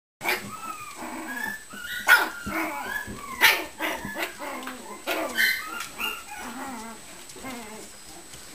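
A litter of mini Shichon puppies yipping, whining and barking as they play and wrestle, with many short, high-pitched calls. The loudest, sharpest cries come about two and three and a half seconds in.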